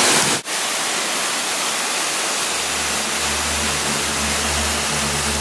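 Waterfall rushing in a steady roar of falling water, briefly cut off about half a second in. A low steady hum joins about two and a half seconds in.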